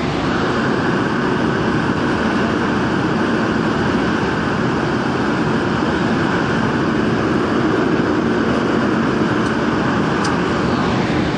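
Daejeon Metro Line 1 subway train running through a tunnel: a steady rumble of wheels on rail, with a higher hiss that comes in at the start and drops away near the end.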